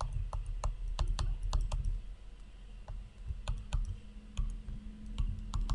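Stylus pen tapping and clicking on a tablet's writing surface during handwriting: irregular sharp little taps, several a second.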